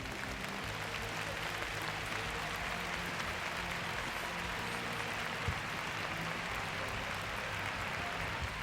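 Arena audience applauding steadily at the end of a figure skating short program, with one sharp knock about five and a half seconds in.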